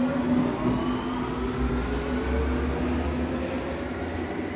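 Berlin U-Bahn class H train pulling out of the station and speeding away. Its traction motors whine in several tones that rise steadily in pitch as it accelerates, over a low rolling rumble that eases slightly as it moves off.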